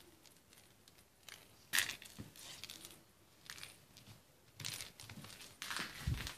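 Close scuffs and rustles in quick clusters as a kitten scrambles about on a laminate floor and the handheld phone is moved right beside it. The loudest scuff comes about two seconds in, and there is a low thump near the end.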